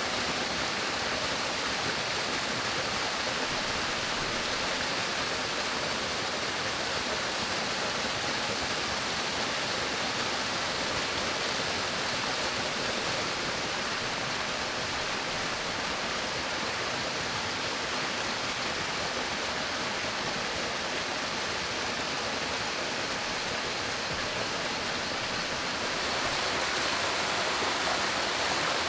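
Small waterfall pouring into a rock pool: a steady rush of falling water, a little louder near the end.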